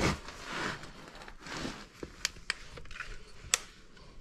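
Rustling and scraping of a person crawling under a car on a concrete floor, with the hand-held camera being moved. A few sharp clicks follow in the second half, the loudest near the end.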